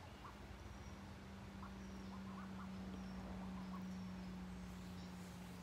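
Faint, scattered short peeps from five-week-old ducks, most of them between about one and three seconds in, over a steady low hum.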